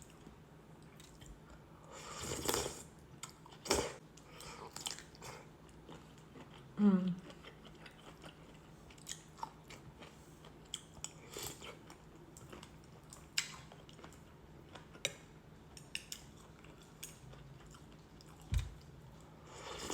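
Close-miked eating sounds: chewing with wet mouth clicks and smacks while eating thick bánh canh noodle soup, with a longer slurp about two seconds in.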